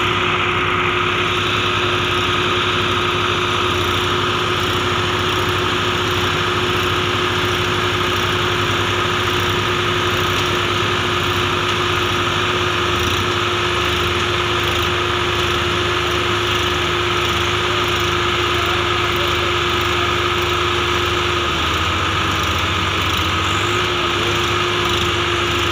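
Massey Ferguson 9500 and Swaraj 855 diesel tractor engines running hard under load in a tug of war, pulling against each other on a chain. A steady, high engine note that drops slightly for about two seconds near the end, then picks back up.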